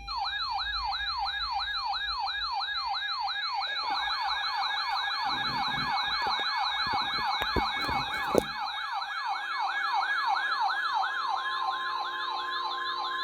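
Electronic yelp siren used as an emergency alert tone, a rising wail that drops sharply and repeats about two to three times a second, before a severe weather warning. A steady tone joins near the end.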